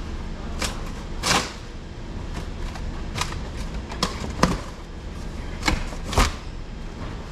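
About seven sharp, irregular knocks and clicks over a steady low hum, the loudest about four and a half seconds in and again about six seconds in.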